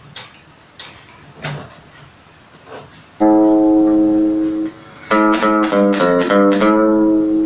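Acoustic-electric guitar played through a mini guitar amplifier fitted with a replacement 4-inch 80-watt woofer. A few light handling knocks come first, then a strummed chord rings for about a second and a half, then quickly picked notes follow. The sound is loud and no longer sember, the buzzy break-up the amp's original small speaker gave.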